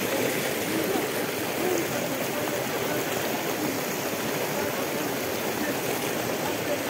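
A steady rushing noise, like running water or wind on the microphone, with faint murmured voices of a gathered crowd underneath.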